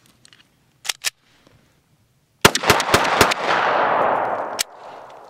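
A rapid string of handgun shots: two sharp clicks about a second in, then shots begin about two and a half seconds in and run together into a dense burst of fire that cuts off suddenly about two seconds later.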